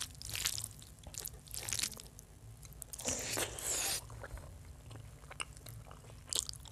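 Close-miked eating of rice and chicken curry by hand: irregular bursts of wet chewing and mouth noises, mixed with the rice being worked by hand on the plate. About three seconds in comes a denser, louder stretch of about a second that cuts off suddenly.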